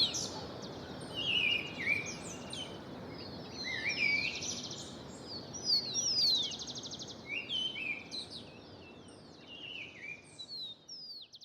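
Several songbirds singing at once in a morning chorus: chirps, quick falling whistles and rapid trills overlap over a steady low outdoor background noise. The sound grows quieter toward the end.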